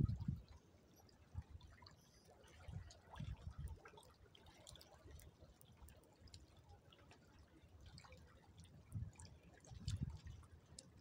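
Faint water lapping and dripping, with scattered small ticks and a few low thumps: about a third of the way in, and again near the end.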